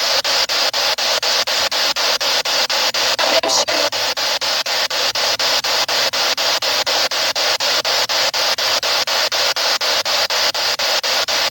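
Spirit box scanning through radio frequencies: hissing static chopped into about five short pulses a second, with a brief louder fragment about three and a half seconds in.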